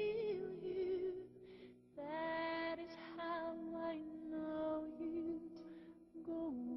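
Slow background music with long held melody notes, changing every second or so.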